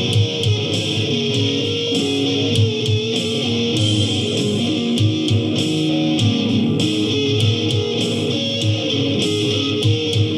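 Music: an electric guitar playing a rock song in F-sharp / D-sharp minor.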